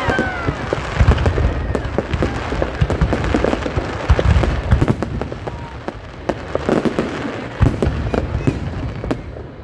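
Aerial fireworks display going off in a rapid, irregular string of bangs and crackles, with deep booms from bursting shells.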